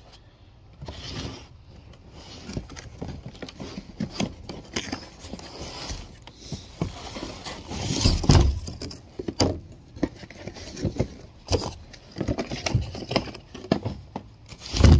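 A cardboard box and its packaging being handled and opened: irregular scraping and rustling with scattered knocks, and heavier thumps about eight seconds in and again at the end.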